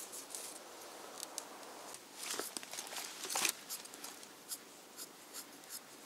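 Faint scraping and tearing strokes of a knife cutting into a rabbit's skin and fur as it is skinned. Two louder cuts come just past the middle, then a run of short, even strokes.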